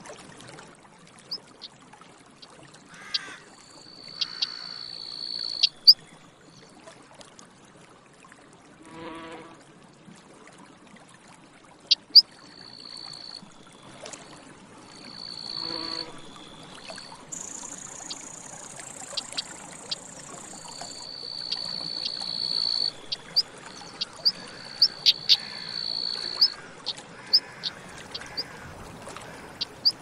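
Outdoor birdsong and insects: repeated sharp, high chips and several drawn-out high thin notes, with a flying insect buzzing past twice.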